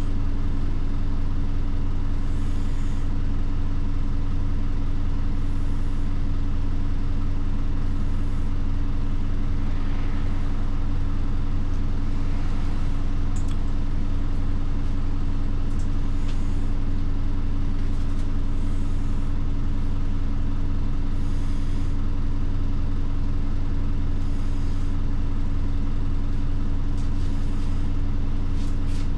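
Bus diesel engine running with a steady low drone, heard from inside the cabin.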